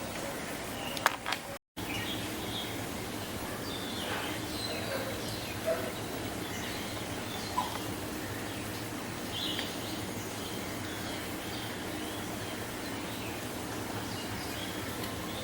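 Steady outdoor background noise with scattered short bird chirps, a few seconds apart. The sound drops out briefly about a second and a half in.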